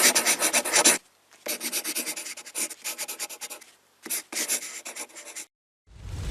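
Runs of rapid, dry scratching strokes, about eight to ten a second, with short pauses between the runs. A rising whoosh begins near the end.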